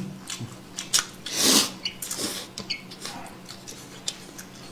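Close-up eating noises: noodles slurped off chopsticks, with a longer sucking slurp about a second and a half in, amid small wet clicks of chewing and mouth sounds.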